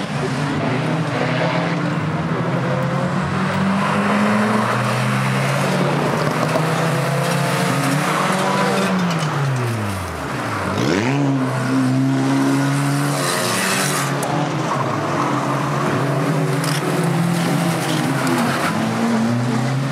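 Several banger racing cars' engines running hard as they race round an oval track. About ten seconds in, one engine's pitch falls steeply and then picks up again.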